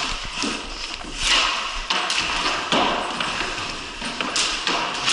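Ball hockey play on a concrete floor: hockey sticks clacking and tapping against each other and the ball, with scattered thuds.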